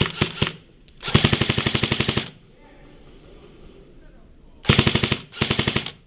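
Airsoft rifle firing in rapid full-auto bursts, about fifteen shots a second: a few shots at the start, a burst of about a second, then two short bursts in quick succession near the end.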